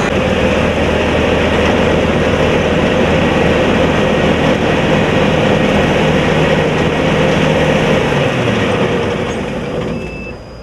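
Corn combine harvester running steadily, its engine and machinery making a loud, even din that dies down in the last couple of seconds.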